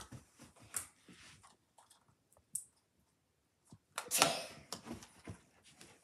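Faint scattered clicks and rustles of a small party popper being handled without going off, with one brief louder rustle about four seconds in.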